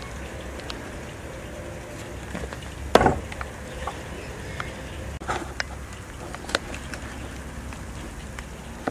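A small hatchet is chopped once into a wooden block about three seconds in, a single sharp strike; a few lighter knocks follow.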